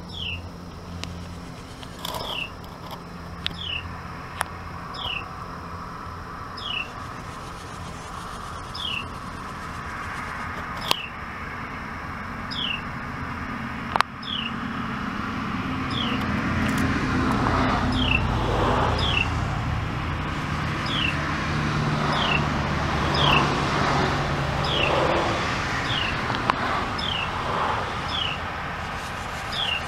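Carolina wrens at the nest: a high, short downward-sliding chirp repeats about once a second, joined about halfway through by a louder raspy chatter from the begging brood. A low steady hum runs underneath.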